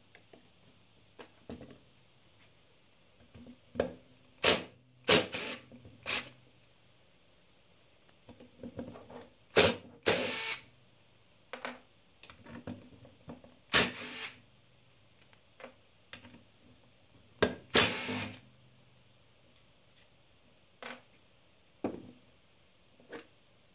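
Cordless drill spinning in several short runs of about half a second each as it backs screws out of a chainsaw's plastic housing, with small clicks and knocks of parts being handled between runs.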